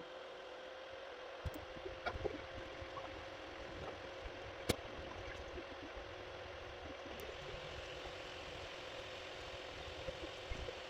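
Steady low mechanical hum with a faint held tone, broken by scattered small clicks, the sharpest about halfway through.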